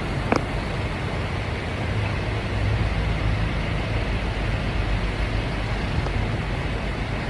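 Steady low rumble of an MTR metro train running, with one sharp click near the start.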